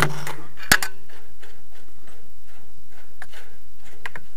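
A sharp metallic click about three-quarters of a second in, then a few faint ticks: the metal fitting of a flexible water supply hose being handled and screwed on by hand.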